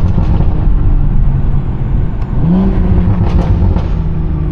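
BMW 340i's turbocharged B58 straight-six running through an aftermarket exhaust with a steady low rumble, its pitch climbing under acceleration about two and a half seconds in and then holding.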